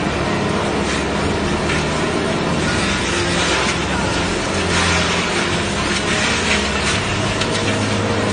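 Small chaff cutter (forage grass chopper) running under load as stalks of grass are fed through it: a steady motor hum under a dense, rough chopping noise with continual crackles as the blades cut the stalks.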